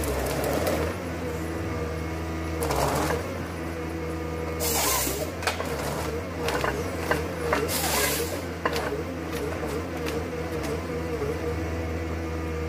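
ProSilva S4 forest harvester's engine running steadily under hydraulic load while its Waratah 413 head works a tree stem. There are three short loud bursts of noise and a run of cracks and knocks from the head's feeding, delimbing and cutting, busiest in the middle.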